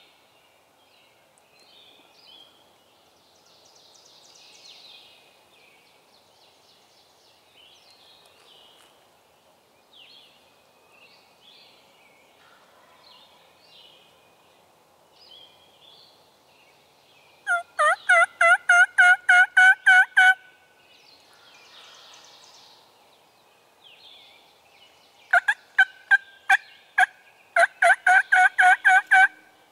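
Three loud runs of wild turkey yelps, each two to three seconds of evenly spaced notes at about four to five a second, the first about halfway in and two more close together near the end. Faint songbird chirping underneath.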